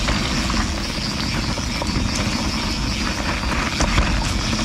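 Canyon Spectral CF mountain bike being ridden down a dirt trail. Wind buffets the action-camera microphone with a steady low rumble, tyres roll over dirt and rock, and the bike gives scattered short clicks and rattles.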